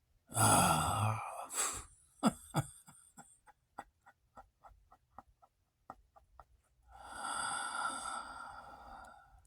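A man's breathy vocal noises: a loud sighing groan about half a second in, then a string of short sharp sounds about two a second that fade away, and a long breathy exhale near the end.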